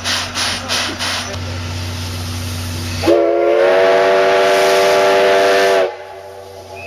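JNR C11 171 steam locomotive: a few last exhaust chuffs at about three a second die away into a steady hiss of steam, then the steam whistle blows one long blast of about three seconds, swooping up in pitch as it starts and cutting off sharply.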